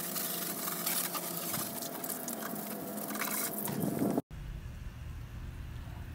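Water from a garden hose spraying onto a tyre and wheel: a steady hiss with spattering. It cuts off abruptly about four seconds in, leaving a quieter low rumble.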